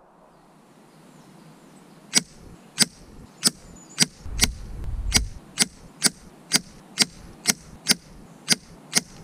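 A rapid, evenly spaced series of about fourteen sharp cracks, roughly one every half second, starting about two seconds in: .177 JSB Knockout slugs striking a card target on a wooden backboard.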